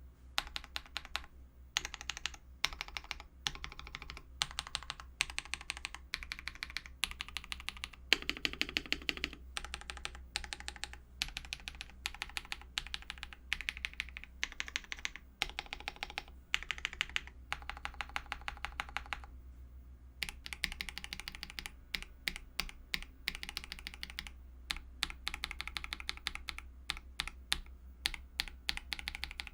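Typing on a mechanical keyboard fitted with lubed Akko CS switches: quick keystrokes in runs, with a short pause about twenty seconds in. A steady low hum sits under the typing.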